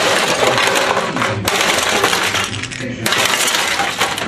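Plastic-cased stereo unit being smashed with a golf club: hard strikes with crunching plastic and clattering, rattling debris, dipping briefly about two and a half seconds in.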